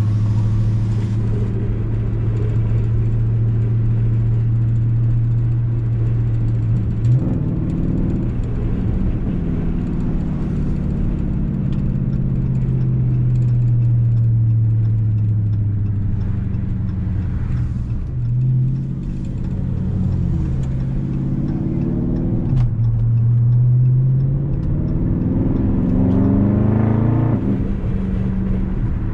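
The 6.4-litre HEMI V8 of a 2020 Dodge Charger Scat Pack, with a mid-muffler-delete exhaust and a 93-octane tune, under way with a steady low exhaust drone. Its pitch steps several times as the gears change, then climbs under acceleration near the end and drops away.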